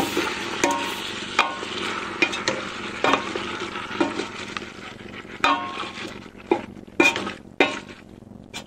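Wooden ladle stirring green beans and tomato sauce in a pressure cooker pot, knocking and scraping against the pot about once a second. Under it the food sizzles, fading toward the end.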